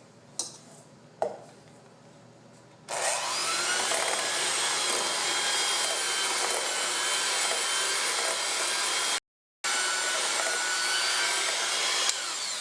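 Electric mixer running steadily at speed, beating the softened butter, brown sugar and vanilla batter until smooth. It starts about three seconds in, after two light knocks, and breaks off for a moment near the end.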